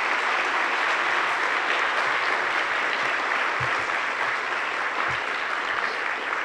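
Audience applauding steadily at the close of a speech, many people clapping at an even level.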